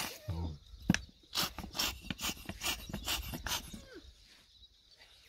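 A short low grunt from the camel, a sharp knock about a second in, then a quick run of wet squirting and rubbing sounds, several a second, as a plastic squeeze bottle is pressed over the prolapsed uterus during its replacement.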